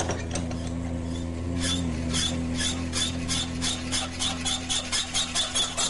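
Rotating shaft grinding against the seal face of its housing under load: a rhythmic rasping scrape, about four to five strokes a second, that starts a little under two seconds in over a steady low hum. The sound marks friction between the faces, which is wearing them and will make the seal leak.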